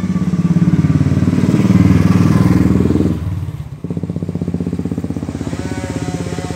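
A small vehicle engine running close by with a fast, even pulse. It eases off about three seconds in, dips briefly, then settles into a steadier, quieter idle as the vehicle slows to a stop.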